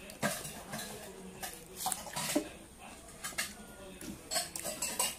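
Fingers scraping and wiping the last of the food off a metal plate: a run of short, irregular scrapes.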